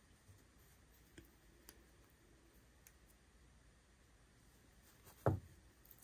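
Faint small clicks of the metal parts of a disassembled Kershaw Chive pocket knife being handled, with one louder knock a little after five seconds in.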